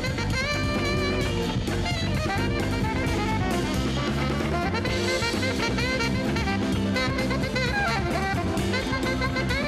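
Upbeat jazz background music with saxophone and brass over a drum kit.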